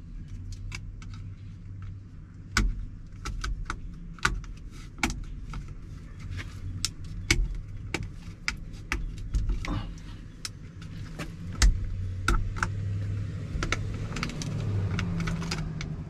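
Scattered clicks, taps and small rattles of plastic and metal parts being handled and pressed together on an opened truck steering column, as a small plastic cover is fiddled into place. A steady low hum runs underneath.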